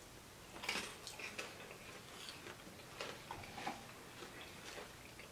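Faint, irregular crunching of someone chewing sugar-coated popcorn, with a couple of louder crunches about a second in and again about three seconds in.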